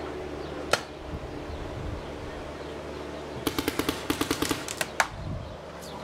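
Paintball markers firing: one shot about a second in, then a rapid string of about a dozen shots at roughly nine a second around the middle. One more, louder shot closes the string.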